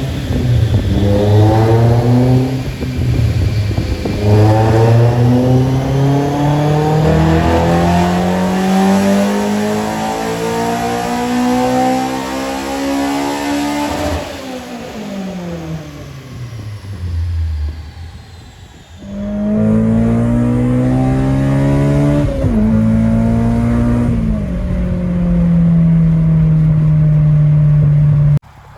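Honda S2000's four-cylinder engine, breathing through a catless test pipe and Invidia N1 full exhaust, wide open on a chassis dyno. After two short rev climbs it makes one long pull that rises steadily in pitch for about ten seconds, then the throttle closes and the revs fall away. The revs climb again just past two-thirds of the way in, then settle to a steady run that cuts off just before the end.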